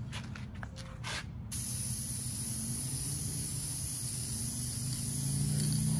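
Aerosol can of Dupli-Color vinyl and fabric spray paint spraying in a continuous hiss. The spraying starts about a second and a half in, after a few sharp clicks. A low hum runs underneath and grows louder near the end.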